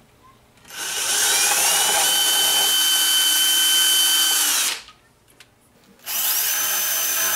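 Cordless drill with a small 5/64-inch bit drilling pilot holes into plaster, in two runs: each spins up with a rising whine and then holds a steady pitch. The first stops after about four seconds and the second starts about six seconds in. The bit goes through plaster without hitting wood.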